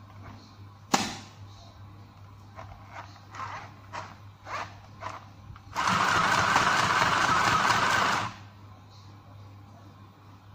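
Mini portable sewing machine: a sharp click about a second in and a few lighter clicks as the handwheel is turned, then the motor runs and stitches steadily for about two and a half seconds and stops.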